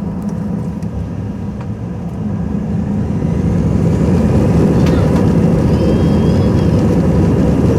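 Airbus A320-214's CFM56-5B turbofan engines spooling up to takeoff thrust for the takeoff roll, heard inside the cabin: a loud rumble that swells over the first few seconds, then holds steady.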